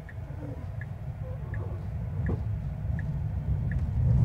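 Tesla Cybertruck turn signal ticking steadily inside the cabin, about once every three-quarters of a second, over a low rumble of road and drivetrain noise that grows louder toward the end as the truck pulls away with the boat in tow.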